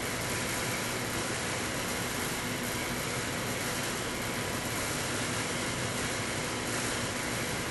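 Steady background hiss with a faint low hum, unchanging throughout, like ventilation or idle machinery running in the room; no distinct event.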